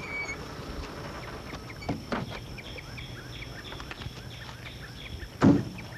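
Doors of a 1940s sedan being opened, with a couple of knocks about two seconds in and one loud door slam near the end, over birds chirping.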